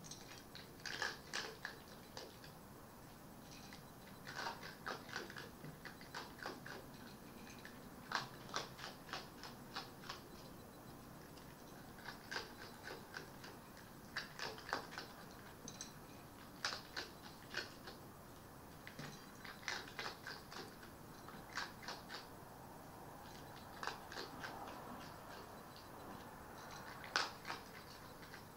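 Red fox eating from a bowl: crunchy bites in clusters of several sharp clicks, coming every one to two seconds.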